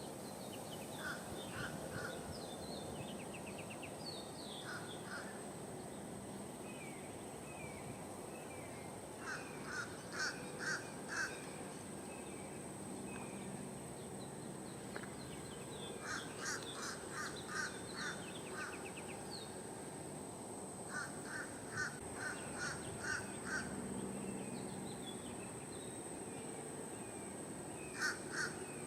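A bird calling in bouts of three to six short, harsh, caw-like notes, repeated every few seconds. Softer chirps and a steady high whine run underneath.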